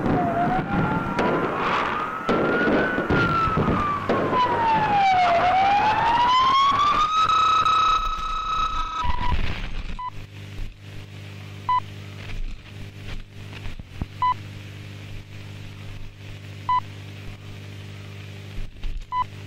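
A siren wailing up and down in pitch twice, then holding a high note, over a crackle of sharp bangs like fireworks. The siren and bangs cut off about nine seconds in, leaving a steady electrical hum with a short beep every two to three seconds.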